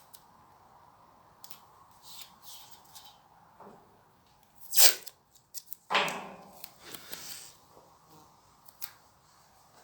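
Scattered short scrapes and rustles from hand tools and steel being handled while the corners are marked out, with two louder scrapes about five and six seconds in.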